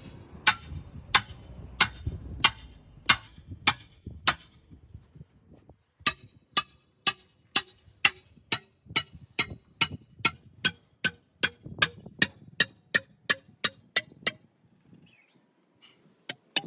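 Hammer blows on steel, sharp ringing clinks, as a tractor tire is worked onto its rim: about seven slower strikes, a short pause, then a quicker run of about three strikes a second, starting again near the end.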